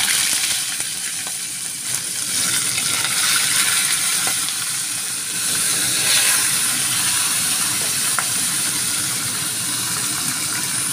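Fish steaks sizzling in hot oil in a small pan, a steady hiss that flares up sharply at the start and again partway through as more pieces are laid in, with a few small spattering pops.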